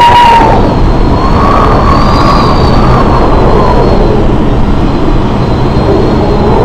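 Loud, steady engine noise with a high whine that drifts slightly in pitch.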